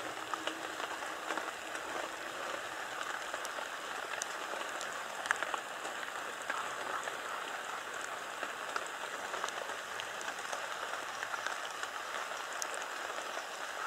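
Steady hiss of light rain, with many faint scattered drip ticks. No stag roars.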